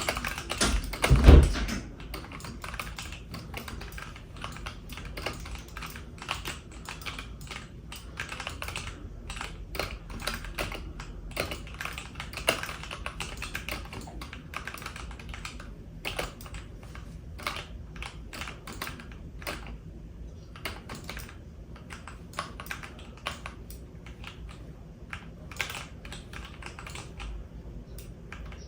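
Computer keyboard keys clicking in a quick, irregular stream of keypresses, with one loud thump about a second in.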